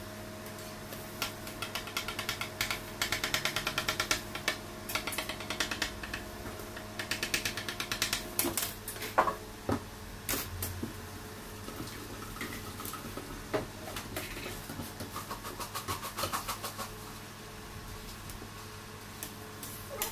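Knife sawing through a baked sponge cake with quick back-and-forth rasping strokes in two long runs, followed by a few knocks and lighter scrapes as the cut pieces are handled. A steady low hum runs underneath.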